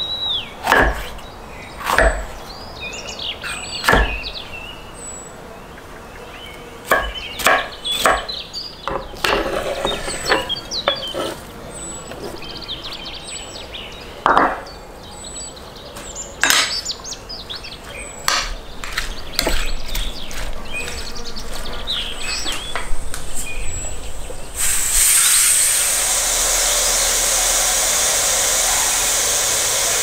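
Chef's knife chopping a tomato on a wooden cutting board in sharp knocks, then a fork clinking and scraping in a ceramic dish. Near the end a loud, steady hiss starts abruptly: a pressure cooker letting off steam through its valve.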